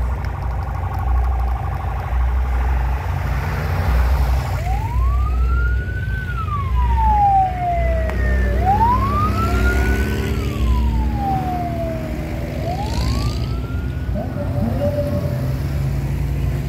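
A siren wailing in three slow rising-and-falling sweeps, starting about four and a half seconds in, the last one cut short. Under it runs the steady low rumble of off-road 4x4 engines pulling away from the start.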